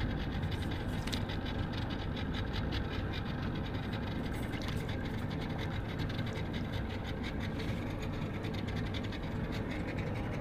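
Boat's outboard motor running steadily at low speed, with an even hum and fine rapid ticking.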